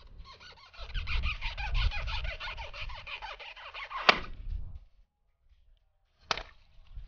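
Knife blade rubbing and squeaking across the taut rubber of a water-filled balloon, a fast rasping chatter, ending in a sharp pop about four seconds in as the balloon bursts. Another sharp snap comes about six seconds in.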